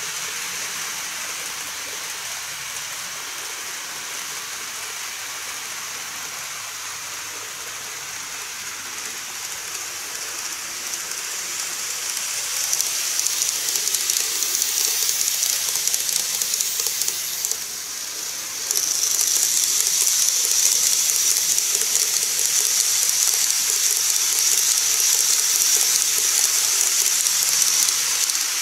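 Model trains (a 115 series set and a KATO 285 series Sunrise Express) running on the track: a steady, high hissing rattle of wheels on rail and motors. It grows louder a little before halfway as a train comes close, dips briefly, then rises again and stays loud.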